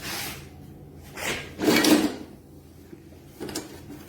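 Mower parts being handled and slid together: two scraping swishes, the louder about a second and a half in, then a few light clicks near the end.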